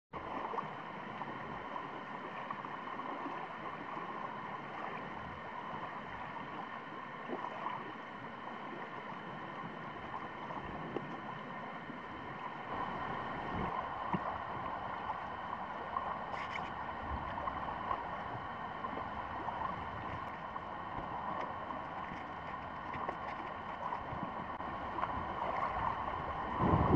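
Shallow water lapping and trickling among shore pebbles: a steady wash with a few faint clicks.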